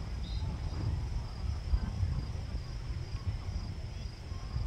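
Insects chirping in a steady high-pitched pulse, about three chirps a second, over a low rumble.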